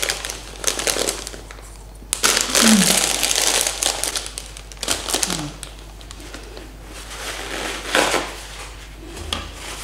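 Plastic popcorn bag crinkling in bursts as a hand rummages in it, the longest and loudest starting about two seconds in. A paper tissue rustles near the end.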